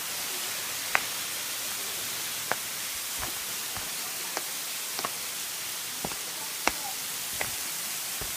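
Steady hiss of falling water from a waterfall, with a few scattered sharp clicks.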